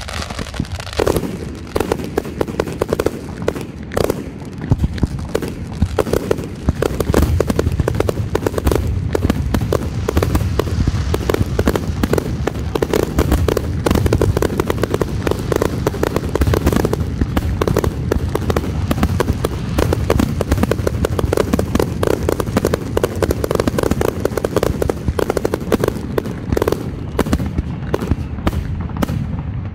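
Aerial fireworks display: a loud, rapid barrage of shell launches and bursts, the reports coming so fast they run together without a break.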